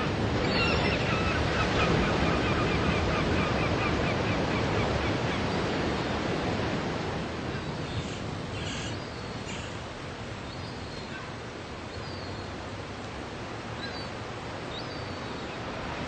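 Ocean surf breaking on a sandy beach and washing up the shore: a steady roar of waves and foam that eases off a little about halfway through.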